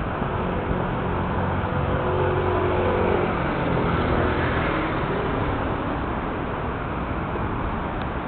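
A motor vehicle passing by, its engine hum swelling and then fading over a few seconds against steady outdoor noise.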